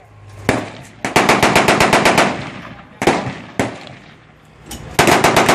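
Machine-gun fire: a single shot, then a rapid burst of about a dozen rounds at roughly ten a second, two more single shots, and another rapid burst starting near the end.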